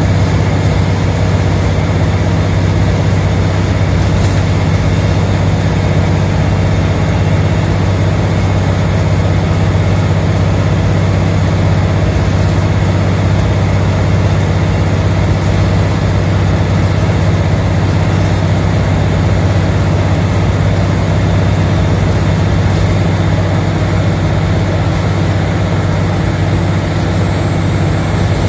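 Scania OmniCity L94 bus running on the road, heard from inside the passenger saloon: a steady low drone from its 9-litre five-cylinder diesel engine mixed with road and body noise. A faint high whine slowly drops in pitch.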